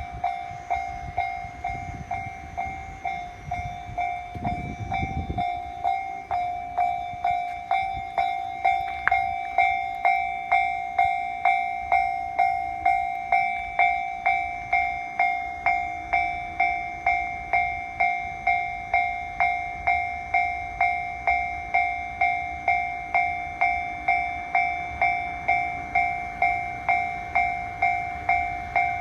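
Japanese railway level-crossing warning bell ringing a steady, evenly repeating electronic ding, louder after about eight seconds. A low rumble comes through at about four to five seconds.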